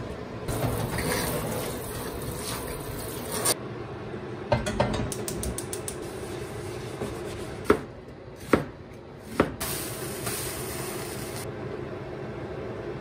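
A wet stainless steel griddle is rubbed and handled in a sink, then set down with a clatter on a gas cooktop. Three sharp clicks of the burner's igniter follow, and then a short hiss.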